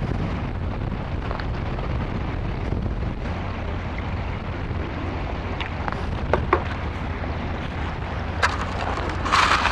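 Wind buffeting the microphone as a steady low rumble, with a few light clicks. Near the end a metal sand scoop strikes and starts crunching into the wet, shelly sand.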